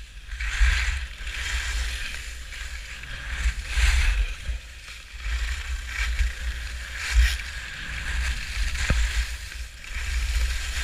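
Skis scraping over snow during turns, a hiss that swells about every three seconds, over wind buffeting the microphone.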